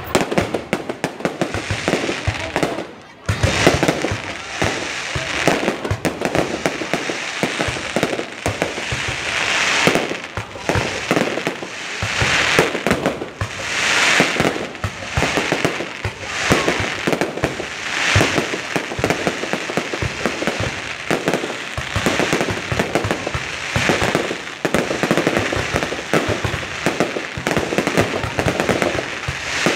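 Fireworks display going off: a dense, unbroken run of bangs and crackling, with swells of hissing crackle every couple of seconds.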